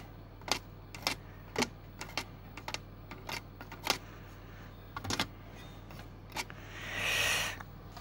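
Small plastic clicks, roughly two a second and unevenly spaced, as a screwdriver tip pushes the blades of a small 40 mm cooling fan round by hand to work freshly dripped oil into its squealing bearing. A low steady hum runs underneath, and a soft rushing noise rises and fades about seven seconds in.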